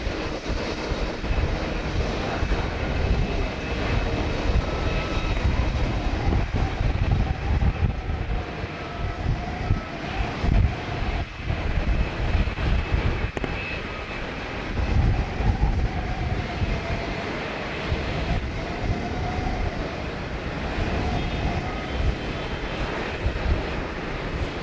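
Boeing 767 jet engines running at low taxi power: a steady noise with a faint wavering whine over an uneven low rumble.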